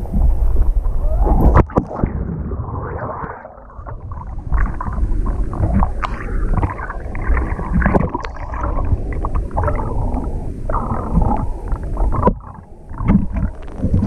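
Water splashing and churning against an action camera in its waterproof housing as it is pushed through a waterfall pool, muffled and dull from about a second and a half in, with a few sharp knocks in the wash.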